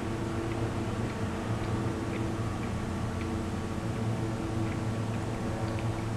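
Steady low hum with faint, scattered small mouth clicks from chewing a chewy fruit-and-nut bar.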